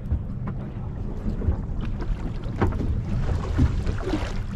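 Low, steady hum of a fishing boat's engine idling, with wind on the microphone and a few light clicks and knocks.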